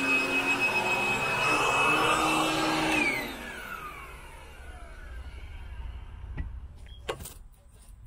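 Royal commercial upright vacuum cleaner running steadily, then switched off about three seconds in, its motor whine falling in pitch as it winds down. A few light knocks follow near the end.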